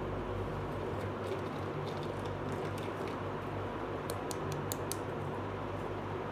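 Small plastic toy pieces being handled and set down, making light clicks, with a quick run of sharper clicks about four seconds in. A steady hum and hiss lies underneath.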